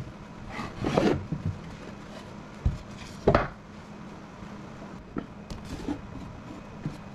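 Scattered knocks and clunks of heavy plastic-cased LiFePO4 battery cells being lifted out of a plywood box and set down on a stone countertop, with the box itself shifted; the loudest thump comes a little over three seconds in.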